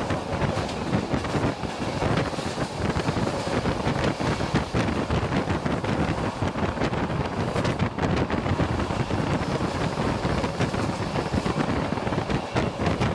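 Wind buffeting the microphone over the steady running noise of a moving passenger train, gusty and uneven.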